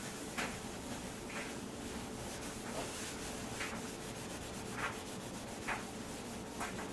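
A scouring pad scrubbing a toaster oven door, a steady rubbing scrape with a harder stroke about once a second.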